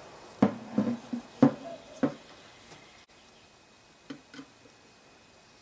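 About five sharp metal clunks as a car alternator's cast housing with its stator is handled and set down on a table. A little after four seconds come two light clicks of a screwdriver on the stator's retaining screws.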